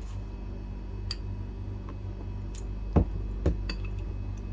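A metal spoon knocking against a plastic measuring jug while tamarind pulp is spooned in: a few light clicks, then two sharper knocks half a second apart about three seconds in.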